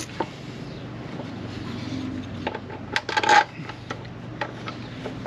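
Small metal parts and bolts clinking against metal, with a short rattling cluster of clinks about three seconds in. A steady low hum runs underneath.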